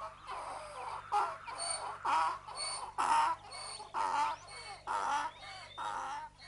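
Hens clucking in short calls, about two a second.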